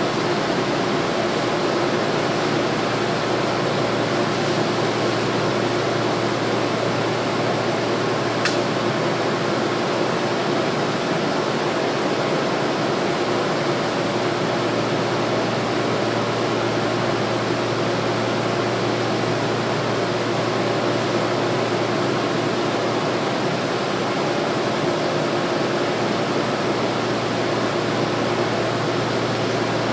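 Steady hum and rush of air-conditioning and ventilation inside a stationary airport people-mover car, with a single short click about eight seconds in.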